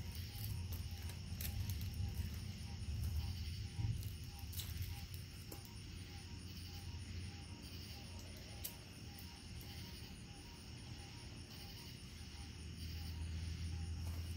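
Night insects chirping steadily in a fast, even rhythm, over a low rumble that swells about two to four seconds in and again near the end.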